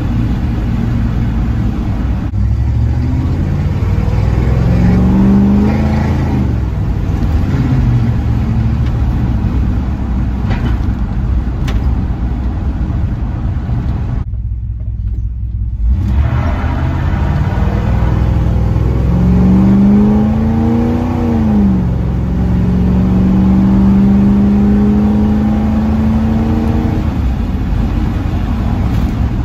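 1978 Ford F100's 351M V8, fed by a Holley four-barrel carburettor and breathing through a single 3-inch pipe with a Magnaflow muffler, heard from inside the cab on the move. The engine note climbs under acceleration and drops sharply twice as the C6 automatic shifts up, then holds a steady cruising note near the end.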